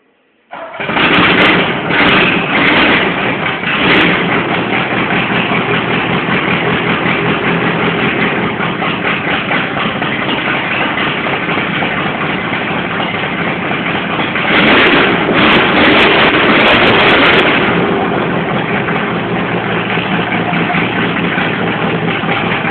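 Ford Taunus coupe engine with an open, unmuffled exhaust starting about half a second in, blipped a few times, then idling. It is revved again for about three seconds past the middle, then settles back to idle.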